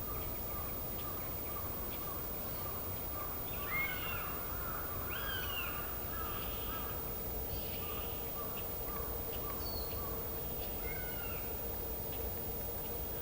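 Female northern goshawk calling: a run of short, evenly repeated harsh call notes, with a louder burst of longer calls that bend down in pitch in the middle. It is a female calling to the male.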